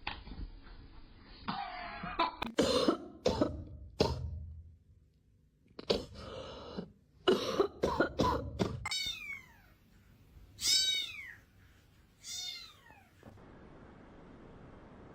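A string of short, harsh coughing sounds, then a domestic cat meowing three times, each call falling in pitch.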